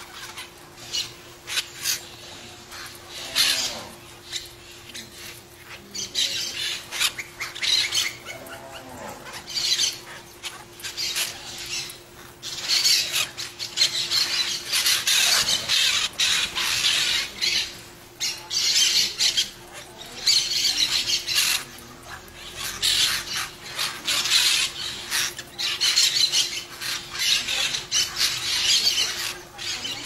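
Young rose-ringed parakeets begging for food with harsh, rasping calls repeated in rapid runs as an adult feeds them beak to beak.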